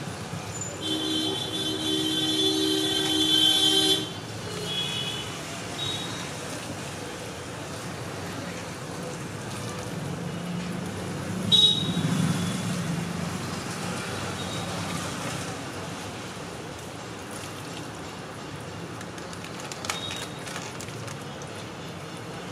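Street traffic noise with a vehicle horn held for about three seconds, starting about a second in, followed by a few short toots.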